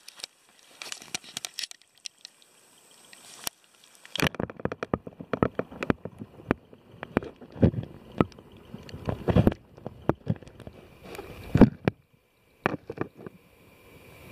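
Stream water gurgling and sloshing around a camera held under the surface, heard muffled through the submerged microphone. A few scattered clicks at first, then a busy run of irregular knocks and thumps from about four seconds in.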